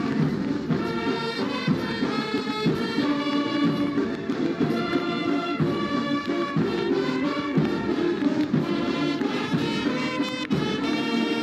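Massed military band of brass and drums playing a march tune, held brass notes over a steady drumbeat.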